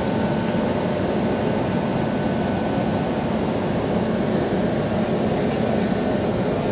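A WAP7 electric locomotive standing with its cooling blowers and auxiliaries running: a steady whirring drone with a faint constant whine.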